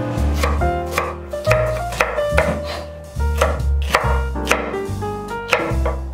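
A chef's knife slicing bell pepper into thin strips on a wooden cutting board, sharp cuts at about two a second. Background jazz-style music with bass plays under it.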